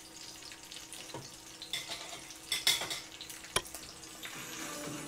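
Dried round scad (galunggong) frying in hot oil in a pan: a steady sizzle, with a few sharp clicks, the sharpest about three and a half seconds in.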